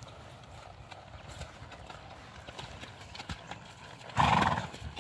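A ridden horse walking on grass, its hooves falling in a light, uneven walking rhythm. About four seconds in, the horse gives one short, loud snort.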